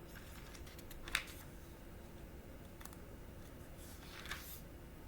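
Faint paper rustling and light clicks of Bible pages being turned: a sharp rustle about a second in and a longer one near four seconds.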